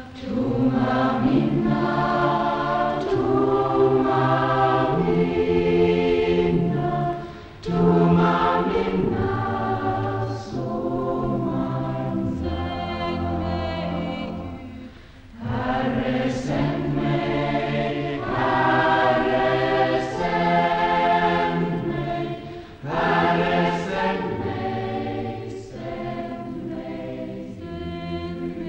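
A choir singing in long phrases, with short breaks about every seven to eight seconds.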